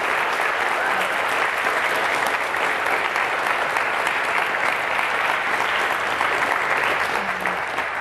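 Audience applauding steadily, a dense, even clapping that holds its level throughout.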